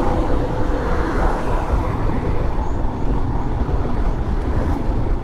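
Motorcycle riding at speed: the engine running steadily, mixed with road and wind noise.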